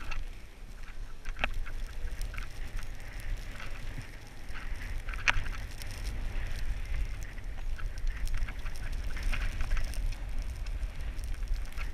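Wind buffeting a body-worn camera's microphone as it moves down a ski run, with the hiss and scrape of skis over snow and a few sharp knocks, the loudest about a second and a half in and about five seconds in.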